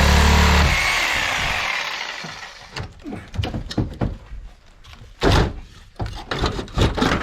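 A power tool running cuts off under a second in and winds down over about two seconds. Then comes a string of separate knocks and clatters as material and tools are handled.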